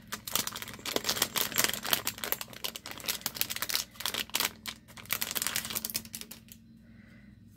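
A stack of photocards being flipped through by hand, a quick irregular run of light card-on-card clicks that stops near the end.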